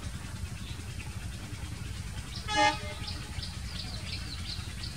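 Diesel locomotive of a passenger train giving one short horn toot about halfway through, over a steady low rumble.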